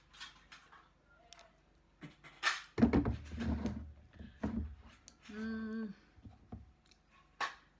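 Containers being handled on a surface: scattered knocks and clicks, with a louder stretch of thudding about three seconds in. A short hummed 'mm' from a woman's voice comes a little past the middle, and a sharp click near the end.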